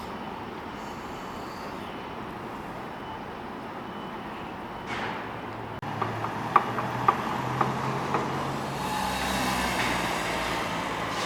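Downtown street traffic: steady traffic noise, then a handful of sharp knocks about six to eight seconds in, and a heavy vehicle's engine growing louder near the end.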